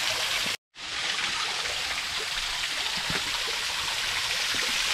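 Small waterfall and creek rushing steadily, broken by a brief dropout just over half a second in.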